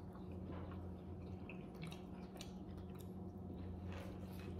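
Faint chewing and mouth sounds from two people eating a fried chicken sandwich and fries, small soft clicks scattered throughout over a steady low hum.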